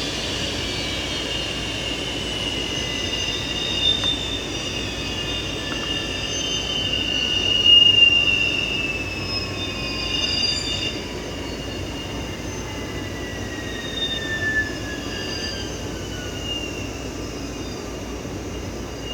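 Whine of a Bombardier Challenger 350 business jet's twin Honeywell HTF7350 turbofans, several high whistling tones gliding slowly down in pitch over a steady rush. The whine peaks about eight seconds in, then eases.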